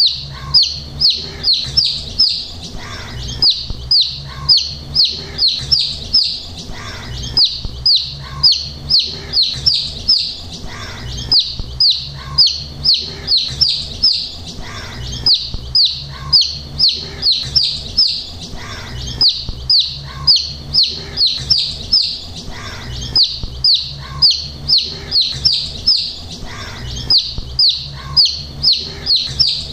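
Baby chicks peeping: a steady stream of short, high peeps that fall in pitch, several a second, in runs with brief pauses between them.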